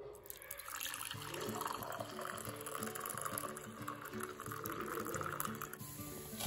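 Tea being poured in a steady stream from a steel saucepan into a ceramic mug, splashing into the cup until it stops about six seconds in. Background music plays underneath.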